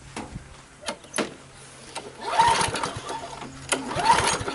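Kohler Courage engine of a Husqvarna self-propelled push mower being pull-started: a few light clicks, then two pulls of the recoil starter cord, each a short whirring crank that rises and falls in pitch, with no firing. It will not start because the spark plug wire has been left disconnected.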